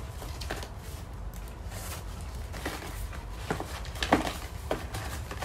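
Paper gift bag and its satin ribbon rustling as they are handled and untied, with a few short, soft crinkles spread through.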